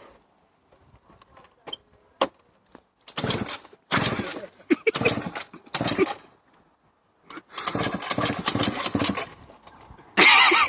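Motorcycle engine cranked over in several short attempts, pulsing rhythmically but not catching: the bike won't start. A sharp click comes about two seconds in, before the first attempt.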